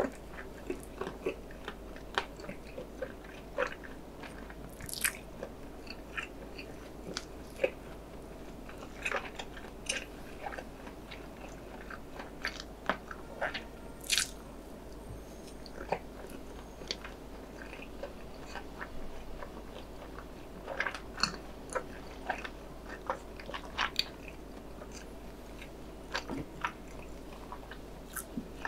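Close-miked chewing and biting of a battered, cheese-seasoned hot dog dipped in sauce, with irregular wet clicks and crunches.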